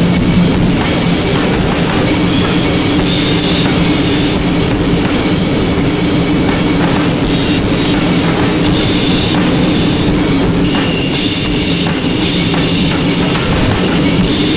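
Harsh noise music: a loud, dense wall of noise crackling across the whole range, with a steady low drone underneath, running without a break.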